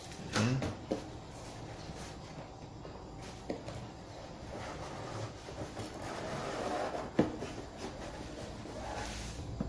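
Box contents and packaging being handled: rustling with a few light clicks and knocks, the sharpest about seven seconds in.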